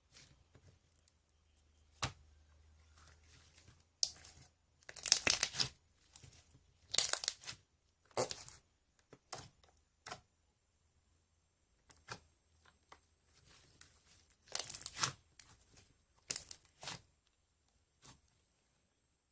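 Slime being handled by hand: stretched, pulled and squished, with irregular crackly tearing bursts separated by quiet pauses.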